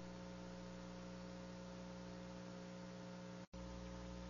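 Faint, steady electrical mains hum on the audio track, several low tones held without change, cutting out for an instant about three and a half seconds in.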